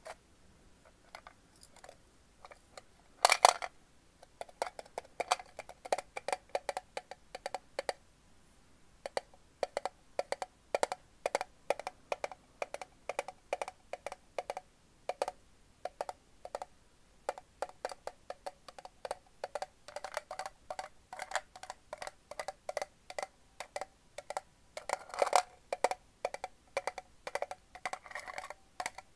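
Sakuma Drops hard candies rattling inside their metal tin as it is tilted and shaken: quick runs of clicks and clatter, with a louder clatter about three seconds in and another near the end.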